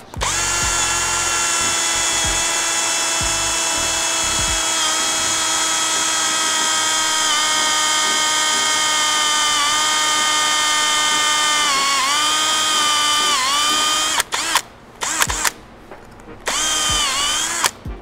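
Cordless drill spinning a step drill bit through a plastic door trim panel: a steady high whine whose pitch sags a couple of times as the bit bites under load. It stops about 14 s in, gives a few short blips, and runs once more briefly near the end.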